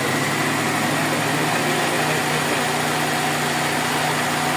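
Toyota Corolla GLi four-cylinder engine idling steadily, its idle speed just set slightly higher.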